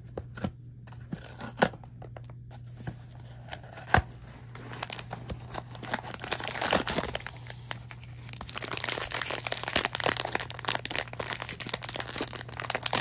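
A blind box's packaging being opened by hand: a few sharp snaps in the first four seconds, then continuous tearing and crinkling of the wrapping from about halfway on.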